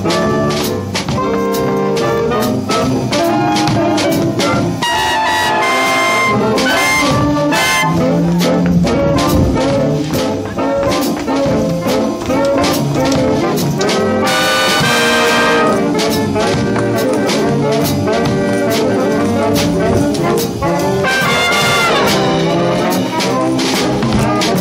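Up-tempo jazz music led by brass, trumpets and trombones, with a steady drum beat.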